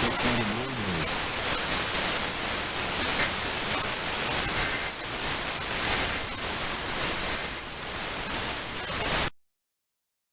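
Steady hiss of static from an FM radio receiver, with a faint voice under it in the first second. It cuts off abruptly to dead silence about nine seconds in.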